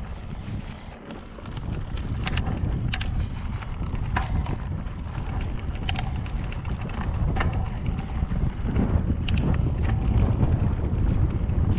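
Wind buffeting the microphone, a low rumble that grows louder about a second and a half in, with scattered sharp clicks and rattles over it.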